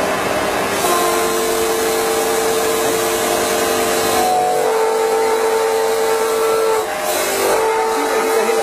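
MBJ99 stone edge polishing machine running, its spinning polishing heads grinding the edge of a stone countertop slab under water spray: a loud, steady whir with whining tones that shift in pitch several times as the heads work the edge.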